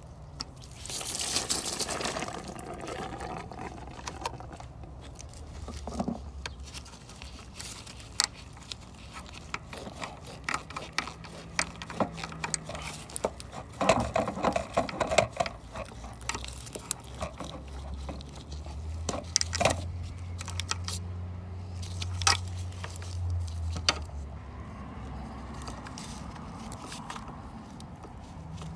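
Gloved hands working a plastic retaining clip and metal fuel line fittings free at a fuel pressure regulator, making irregular clicks, scrapes and glove rustling. The handling is busiest in the middle, with a cluster of sharp clicks there.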